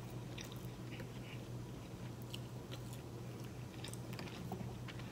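A person chewing a mouthful of turkey leg meat, with faint scattered wet mouth clicks and smacks over a steady low hum.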